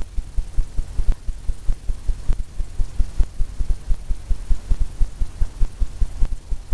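Paintbrush dabbing paint onto a stretched canvas on an easel, a quick run of low thumps at about five or six a second. It is the tapping used to stipple foam onto the painted wave.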